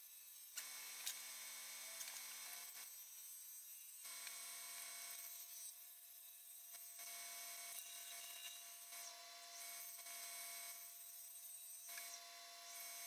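Wood lathe running with a gouge cutting the spinning monkey pod bowl blank: a steady motor hum under a rough scraping hiss from the tool that swells and fades over several passes, with a few sharp clicks.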